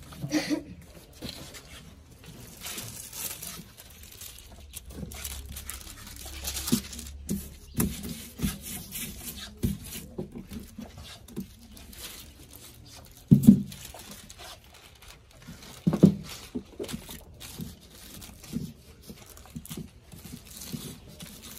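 Foil-backed paper crinkling and rustling as it is pasted and wrapped by hand around a block of firework tubes, with scattered small clicks of handling. Two louder knocks come past the middle.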